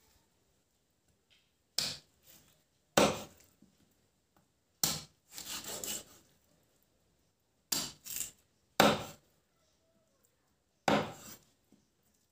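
Large curved knife chopping raw pork belly on a thick wooden chopping block: seven sharp chops at uneven intervals, with a longer rasping stroke through the meat lasting about a second shortly after the third chop.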